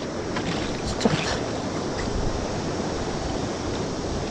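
River water rushing steadily, with a short knock about a second in.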